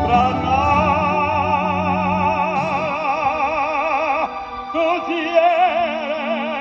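Male singer holding a long note with wide, even vibrato for about four seconds, then after a brief break holding a second note.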